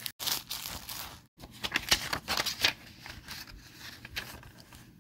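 Plastic DVD case being handled and opened: a run of clicks, rattles and rustles, busiest in the first three seconds and quieter after.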